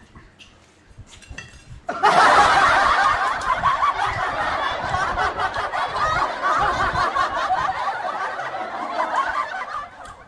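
Canned laughter sound effect: laughing that starts abruptly about two seconds in, runs loud and dense, and dies away near the end.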